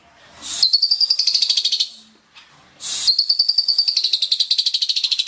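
A pied starling (jalak suren) singing two long phrases of rapid, buzzy repeated notes. Each phrase opens with a short harsh rasp. The second phrase comes just under three seconds in, after a brief pause.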